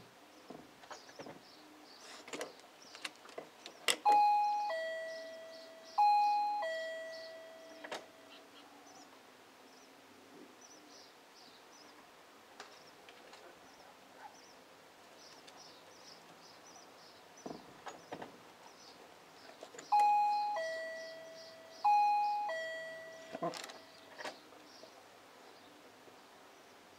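Doorbell chime ringing a two-note ding-dong, high then low, with each note ringing out and fading. It rings twice about two seconds apart around four seconds in, and twice more about sixteen seconds later. Light clicks and taps come just before each pair of chimes.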